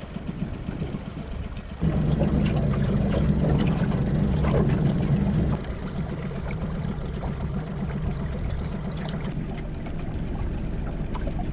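A boat moving slowly at trolling speed: a low motor hum with water lapping and trickling along the hull. The hum is louder for a few seconds starting about two seconds in.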